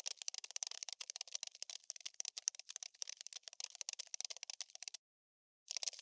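Cockroach skittering sound effect: rapid, dry ticking like insect legs scurrying. It stops about five seconds in and starts again just before the end.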